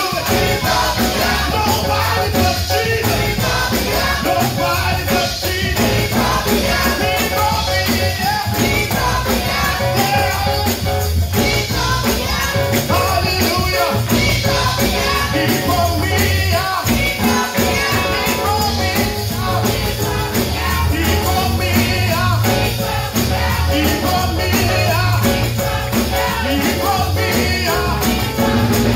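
Gospel choir singing with a live band: a steady beat and a bass line under many voices.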